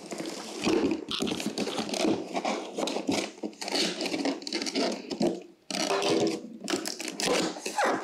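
Cardboard box being opened by hand: a small knife slitting the packing tape along the seams and the flaps being pulled open, with continuous scraping, rubbing and rustling of cardboard and a few short squeaks.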